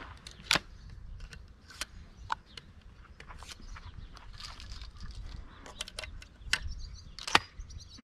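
Irregular sharp clicks and knocks, the loudest about half a second in and near the end, over a steady low rumble.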